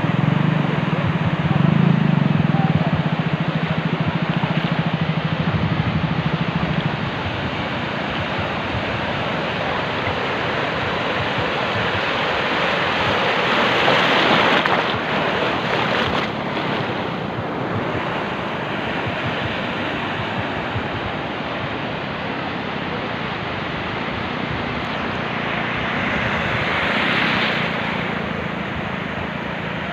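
Arabian Sea surf washing onto the beach, with wind on the microphone; the wash swells twice, about halfway through and near the end. A low steady motor hum runs under it for the first several seconds, then fades.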